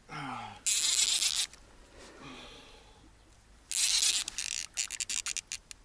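A man's short grunt falling in pitch, then two loud rushing bursts of a fishing reel's drag giving line to a big catfish. The second run slows into a string of separate clicks that thin out.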